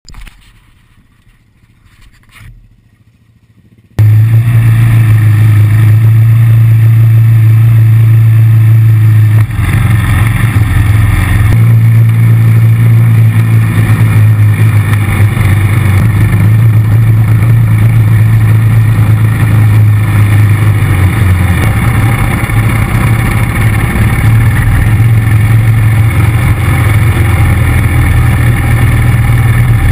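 ATV engine running under throttle, heard loud and close from a camera on the machine. It cuts in abruptly about four seconds in after a faint opening, and its pitch shifts a few times as the rider works the throttle along the trail.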